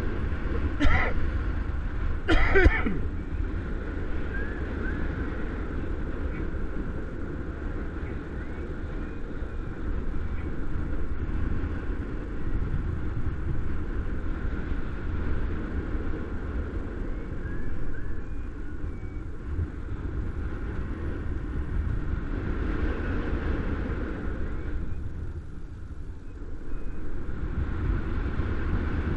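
Steady wind rushing and buffeting over the camera microphone in paraglider flight, a low rumble with some rise and fall in strength. Two short, louder sounds stand out about one and two and a half seconds in.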